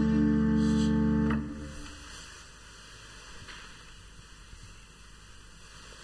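Church organ holding a final chord that stops about a second in and dies away briefly, leaving quiet church room tone.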